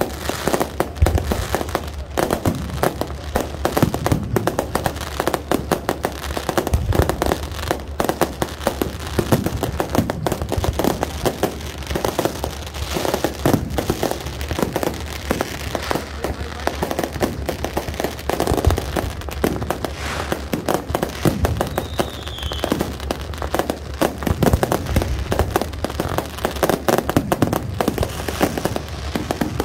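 Aerial fireworks going off in a dense, continuous barrage of bangs and crackling, with no pause between bursts.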